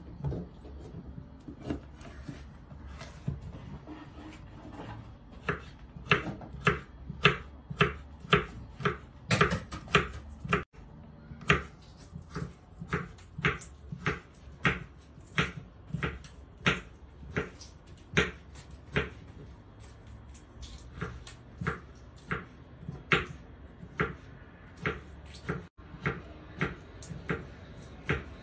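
Kitchen knife cutting vegetables on a wooden cutting board: sharp, even knocks at about two a second, starting a few seconds in.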